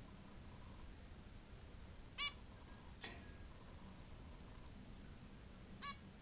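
Zebra finch giving two short calls, about three and a half seconds apart, with a single sharp click between them.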